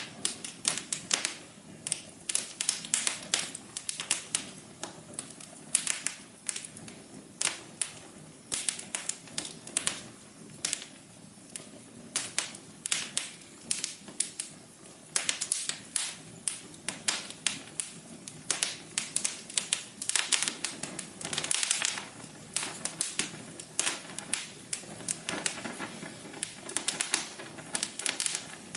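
Wood fire crackling: dense, irregular sharp pops and snaps over a soft steady hiss of burning.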